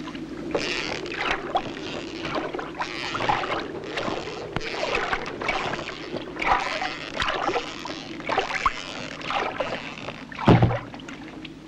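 Water splashing and lapping against a small wooden sailboat's hull in irregular surges, with one heavy thump near the end.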